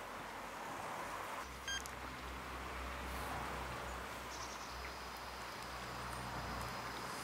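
Outdoor garden ambience with a steady hiss. A sharp click comes about one and a half seconds in, followed by a low steady rumble and, later, a faint thin high tone.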